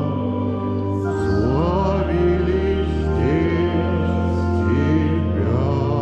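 Church organ playing long held low notes, with a singing voice wavering and sliding in pitch over them.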